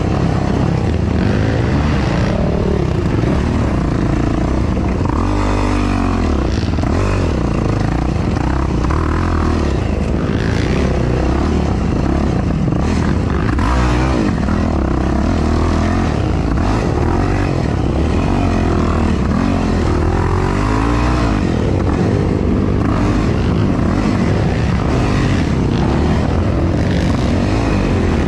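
Yamaha YFZ450R sport ATV's single-cylinder four-stroke engine, racing over rough off-road terrain and heard close from an on-board camera. The engine revs up and down over and over as the throttle opens and closes.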